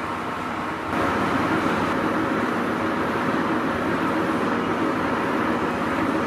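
Horizontal boring machine running steadily: a continuous mechanical hum, louder from about a second in.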